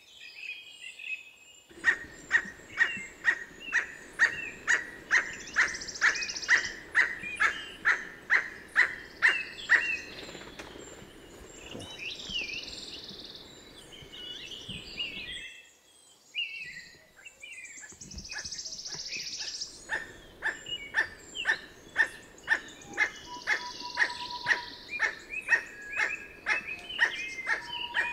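Emerald toucanet calling: a long series of evenly spaced croaking calls, about two a second. The calls break off for several seconds midway and then start again.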